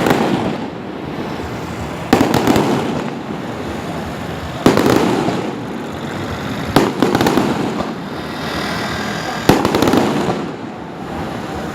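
Fireworks going off in volleys. There are four sharp bangs about two to three seconds apart, each followed by a second or two of crackling.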